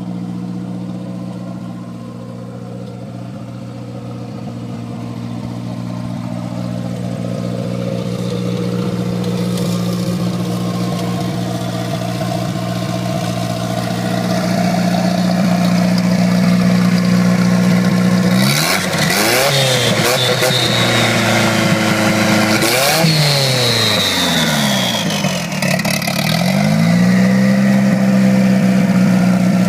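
Volvo 242's turbocharged engine with a Holset HX40 turbo, idling steadily, then revved up and back down twice near two-thirds of the way through. After the second rev a high whistle falls slowly away as the turbo spools down, and the engine settles back to a steady idle.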